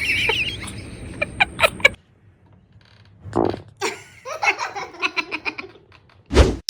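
Laughter and giggling in short rapid bursts, after a noisy stretch that cuts off suddenly about two seconds in. Near the end comes one sudden loud, low blast.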